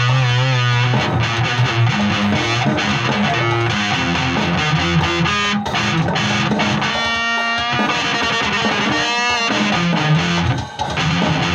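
Electric guitar playing: low held notes under lead lines, with wavering vibrato or bent notes at the start and twice more later on.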